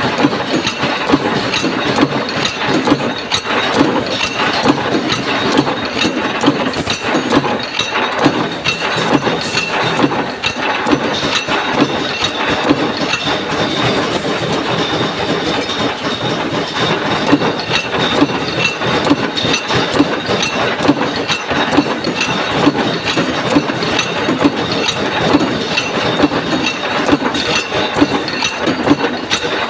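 Mechanical punch press stamping sheet-metal ring plates (flat washers), running steadily with repeated sharp punching strokes over a continuous machine clatter.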